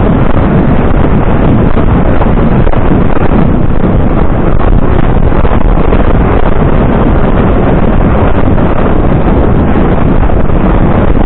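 Loud, steady wind buffeting the microphone of a camera carried on a cantering horse: a continuous rush heaviest in the low end.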